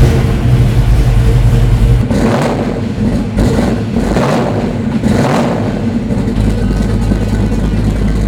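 1971 Plymouth HEMI Cuda's 426 Hemi V8 with dual four-barrel carburettors and dual exhaust catching and settling into a deep idle. It is then revved about four times between two and five seconds in, and it drops back to idle.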